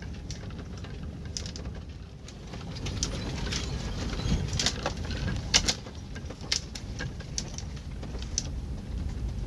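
A van, a converted ambulance, driving slowly over a rough dirt road: a steady low rumble with frequent sharp clicks and rattles as it jolts over the bumps and stones.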